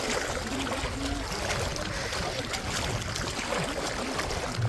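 Steady wash of beach wind and water, with faint voices in the background.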